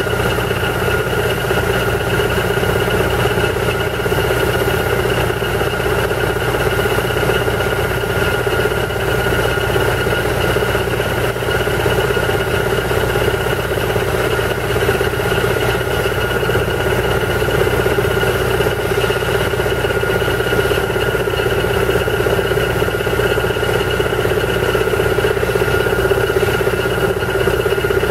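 Airmobil 432 pneumatic drill rigs drilling into a rock slope: a loud, steady, unbroken machine noise with a constant whine over a low hum.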